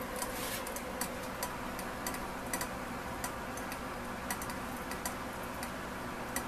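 Tabletop herb steam distiller running mid-distillation: irregular sharp ticks and crackles, several a second, over a steady hum.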